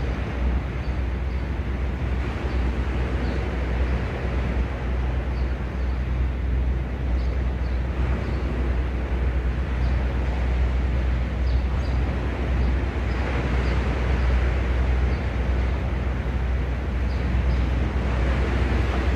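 Sea waves washing onto the shore as a steady wash that swells a little about two-thirds of the way in and again near the end, over a low rumble of wind on the microphone.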